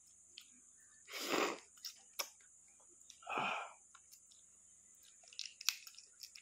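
Two heavy breaths, each about half a second long, about two seconds apart, with faint small clicks of eggshell being peeled off a boiled balut egg.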